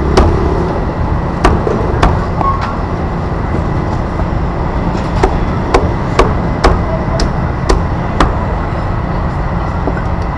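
A blade chopping on a cutting board: sharp separate knocks, about two a second in runs with a pause in the middle, over a steady low rumble of street noise.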